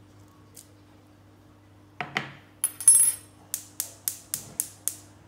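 A few knocks and metallic clinks, then a gas hob's spark igniter ticking six times, about four a second, as the burner is lit.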